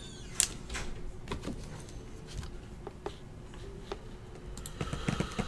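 Scattered light clicks and taps, a sharp one about half a second in, growing into a quick cluster of clicks and rustling near the end.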